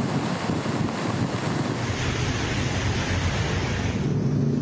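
Steady rush of floodwater in a flooded street, with wind buffeting the microphone. The sound changes abruptly about two seconds in and again near the end.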